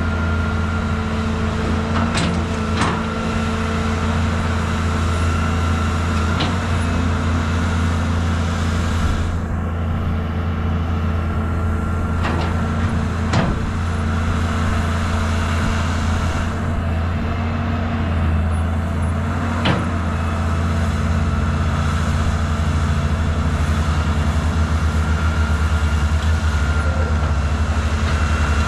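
Caterpillar 320 hydraulic excavator's diesel engine running steadily under load while it digs, with a few sharp knocks from the bucket and boom scattered through. Near the end the engine's low beat pulses more evenly.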